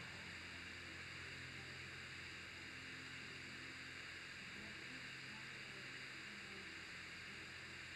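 Faint steady hiss with a low hum underneath: the recording's background noise floor, with no distinct event.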